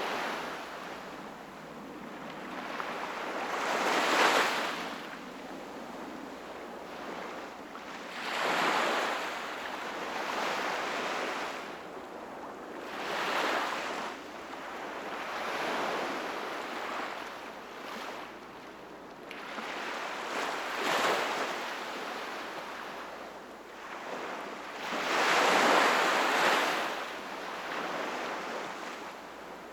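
Sea waves breaking and washing up on the shore, a surge every four to five seconds, about six in all, the loudest near the end.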